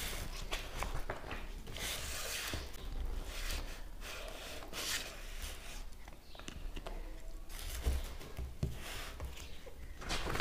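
Glossy pages of a large hardback book being turned and handled, with paper rustling and sliding several times.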